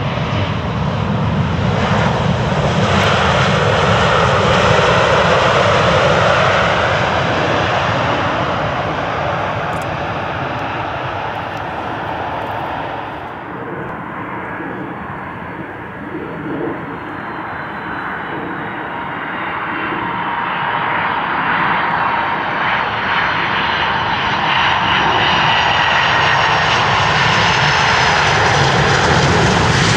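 Jet airliner engines running on landing: a Boeing 777-200's twin engines running loud as it touches down and rolls out. After a cut about 13 seconds in, a four-engined Boeing 747-400F freighter is heard approaching, its engine noise growing louder until it touches down near the end.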